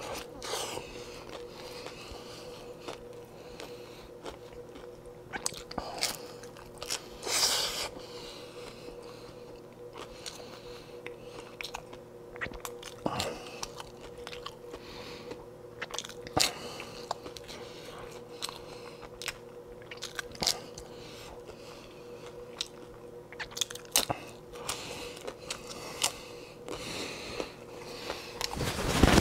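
A person chewing and crunching crisp hard corn taco shells, close to a clip-on microphone: irregular crunches and bites scattered through, over a faint steady hum.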